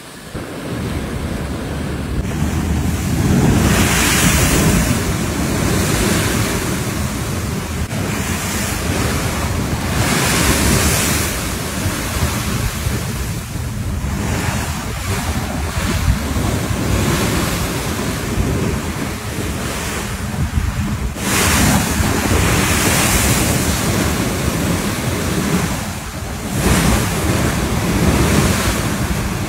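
Churning wake and breaking waves rushing past a moving ship's hull, with heavy wind buffeting the microphone. The rush surges louder every few seconds.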